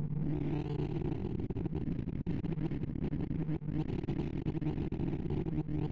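Sorting-algorithm sonification from ArrayVisualizer as Batcher's odd-even merge sort runs: a dense, rapid stream of short synthesized beeps, one for each array access, pitched by the value touched. The notes blur into a continuous low electronic chatter full of clicks.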